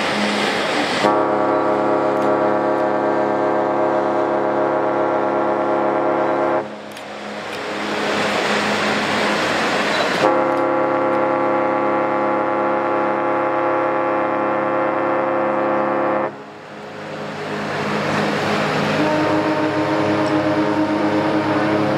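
Ship's horns of the cruise ships AIDAcosma and AIDAsol: two long, steady blasts on one deep horn, each about six seconds, with a rushing noise between them. About three seconds before the end, a horn with a different pitch starts sounding.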